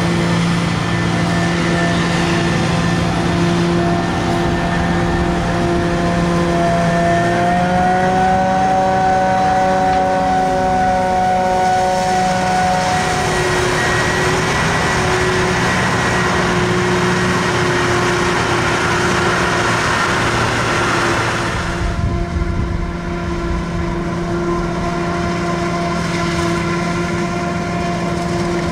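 Heavy harvest machinery running under load, a steady whine of several tones that rises in pitch about seven seconds in and shifts again near thirteen seconds. A louder hiss joins from about twelve seconds and stops suddenly near twenty-two seconds, where the sound changes abruptly.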